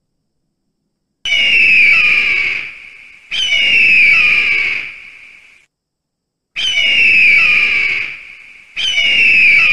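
Steller's sea eagle giving four loud, high-pitched screaming calls in two pairs. Each call starts suddenly, slides down slightly, holds steady and fades over about two seconds.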